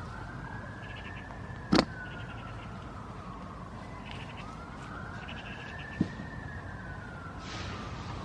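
An emergency-vehicle siren wailing, its pitch rising and falling slowly about once every four seconds. A sharp knock, the loudest sound, comes about two seconds in, with a smaller one about six seconds in.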